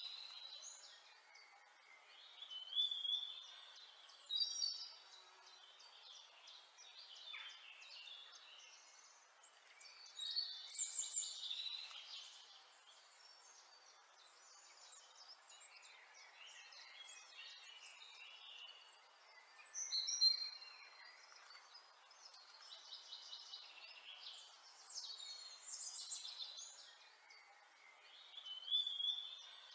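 Birds chirping and singing in short phrases that come every few seconds, over a faint steady hiss.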